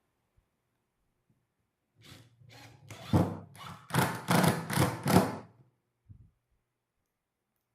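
A run of about nine short knocks on wood, two to three a second and getting louder, typical of wooden bench parts being tapped or worked by hand, followed by a single soft thump.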